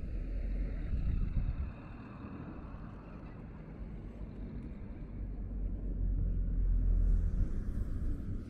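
Car traffic passing on a city street. The tyre and engine rumble is louder for the first second and a half, then swells again toward the end as a vehicle drives close by.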